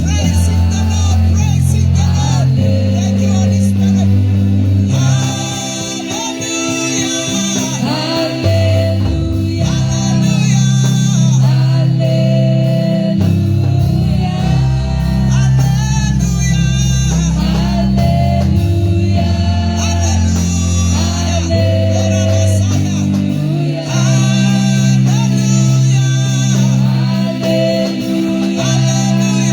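Live gospel worship band with electric guitar and bass playing a song while singers sing.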